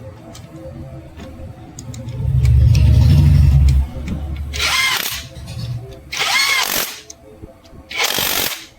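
A power tool runs briefly for about two seconds, then three short bursts of noise follow a second or so apart.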